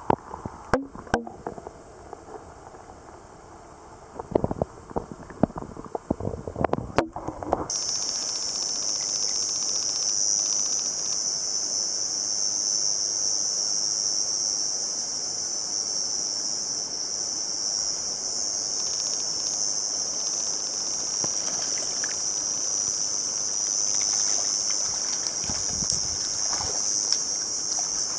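Muffled clicks and knocks from a camera held underwater. About eight seconds in the sound switches abruptly to a steady, high-pitched insect chorus from the riverside woods.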